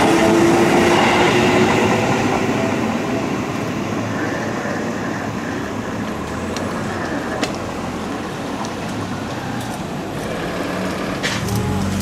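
Seibu Ikebukuro Line electric commuter train passing close, wheels rumbling on the rails and traction motors whining down, fading over the first few seconds. Steady rail noise follows, growing again near the end as a second train approaches.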